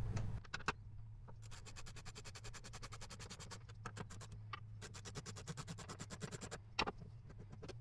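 Socket ratchet clicking in fast, even runs as the parking brake handle's mounting bolts are undone with a 16 mm socket. The run breaks off briefly a little before the middle. A sharper knock comes near the end.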